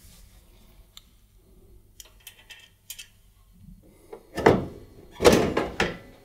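Tumble dryer's metal side panel being pulled off the cabinet: a few faint clicks, then two loud knocks and rattles about four and five seconds in.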